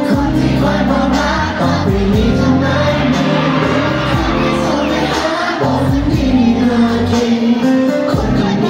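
Thai pop song performed live by a boy band: male voices singing into handheld microphones over the music.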